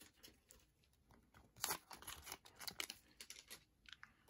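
Faint crinkling of a foil hockey card pack wrapper and soft rustles of the cards as they are slid out of it.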